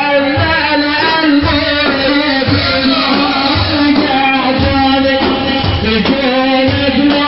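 A male praise singer (maddah) chanting a Sufi mawlid ode in long, ornamented melodic lines. Drums keep a steady beat underneath.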